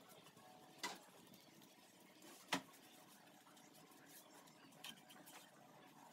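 Faint scratching of a paintbrush spreading wood stain over pallet-wood slats, with a few sharp knocks. The loudest knock comes about two and a half seconds in.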